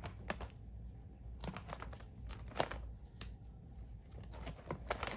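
Clear plastic binder sleeve pages loaded with photocards crinkling and rustling as they are flipped by hand, with scattered sharp ticks; the loudest tick comes about two and a half seconds in.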